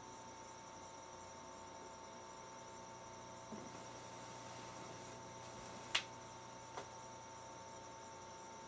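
Dead air from a NOAA Weather Radio receiver with the station's broadcast dropped out: a faint steady hum and thin whine over light hiss. A sharp click comes about six seconds in, with a smaller one just after.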